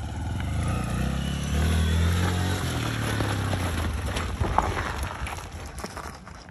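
Small motorcycle engine running as the bike rides up close. It is loudest about two seconds in, then drops in pitch and fades as it slows.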